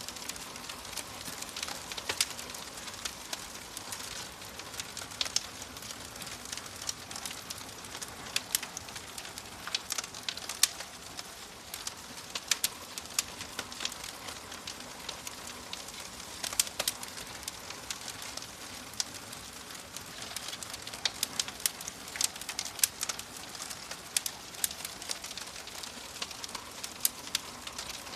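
Wood fire crackling in a fireplace: a steady soft hiss with frequent sharp, irregular pops and snaps.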